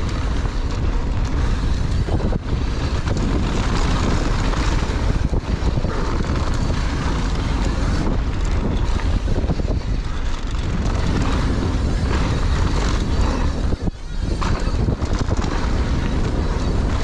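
Wind rushing and buffeting over a camera microphone on a mountain bike riding fast downhill in gusty wind, with a few knocks from the bike over bumps in the trail.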